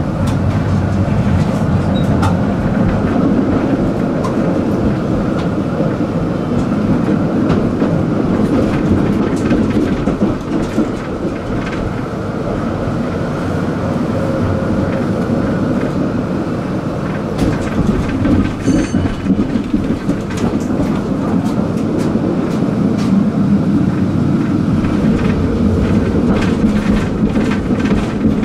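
Tram running along its track: a steady rumble of wheels on rails with scattered clicks over rail joints. A brief high tone sounds about two-thirds of the way in.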